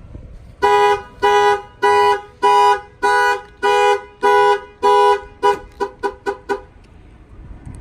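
Chevy Blazer's two-note car horn sounding as an Avital 3100 alarm fires: about eight even honks, then a quicker run of about six short toots before it stops.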